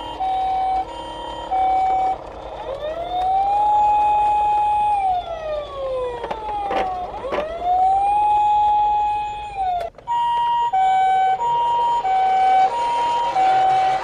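Sirens: an ambulance's two-note siren alternating at first, then a police siren wailing, rising, holding and falling, with a second siren sweeping across it midway. About ten seconds in the wail cuts off abruptly and the two-note alternation comes back, the two notes clear.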